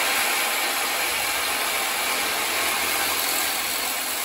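Power cutting tool running steadily, cutting through the metal power steering line at the steering gearbox.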